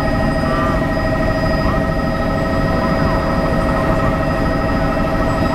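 Helicopter heard from inside the cabin in flight: a loud, steady engine-and-rotor drone with a whine of several steady pitches, some of them pulsing rapidly.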